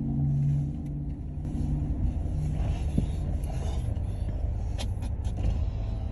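A car's engine and road noise: a steady low rumble, with a steady hum in the first second or so.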